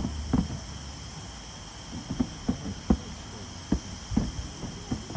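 Steady high chirring of an insect chorus, crickets or similar summer insects, with a scattering of short dull knocks at irregular intervals.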